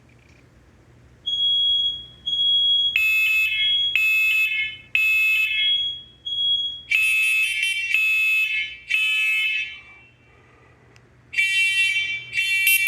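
Hardwired smoke alarms sounding the temporal-three test pattern. A thin, pure beep starts about a second in, then a louder, harsher alarm joins with groups of three beeps about a second apart, separated by short pauses: two full groups and the start of a third near the end. The interconnected units are sounding together.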